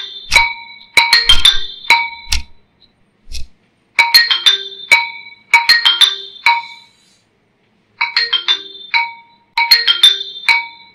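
Mobile phone ringtone: a bright marimba-like melody of quick struck notes, repeated in phrases of two to three seconds with short pauses between, stopping near the end.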